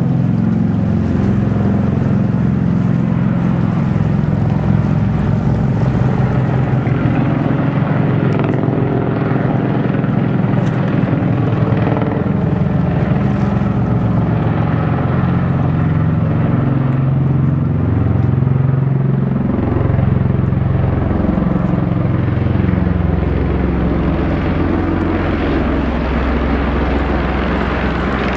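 Bell Boeing V-22 Osprey tiltrotor flying overhead, its twin proprotors making a loud, low, beating drone. Its pitch slides up and then down as it passes closest, about twenty seconds in.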